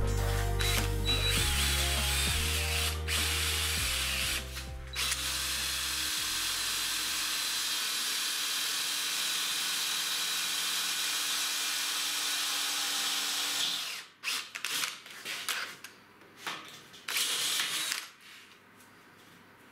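Hand-held power drill boring into the metal base of a linear guide rail. It runs steadily for about fourteen seconds, with two brief dips in the first five, then gives a few short bursts and stops. Background music with a stepping bass line fades out over the first several seconds.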